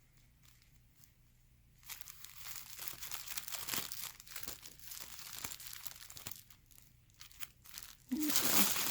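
Plastic bag crinkling and rustling as it is handled and opened, starting about two seconds in, with a louder burst of crinkling near the end.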